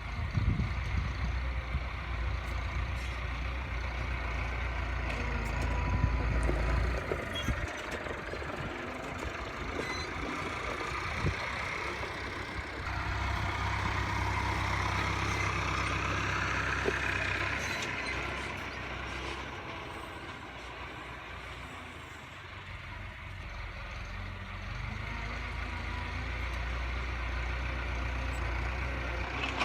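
Tractor engine running while stacking bales, its speed rising and falling as it works, with a whine that climbs midway.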